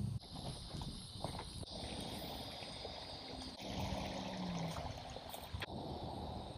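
Outdoor bank ambience: a steady high insect buzz over a soft rushing noise, with a few light clicks and rustles of someone moving through dry grass and brush. The buzz drops out about three and a half seconds in.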